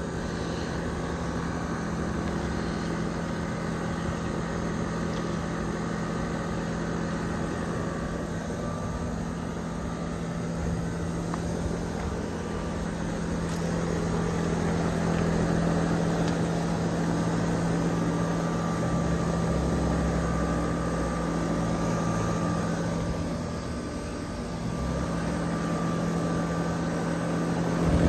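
Trane XR central air conditioner's outdoor condensing unit running: a steady hum with the whir of its condenser fan, slightly louder in the middle.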